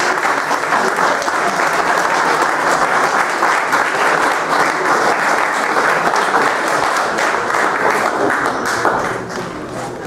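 A small audience applauding steadily, the clapping dying down about nine seconds in.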